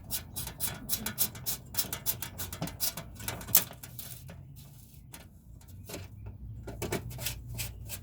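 Rapid, irregular clicking and light tapping, densest in the first half and thinning out later.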